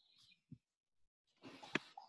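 A few faint clicks of typing on a computer keyboard, with a short rush of noise and a sharper click near the end.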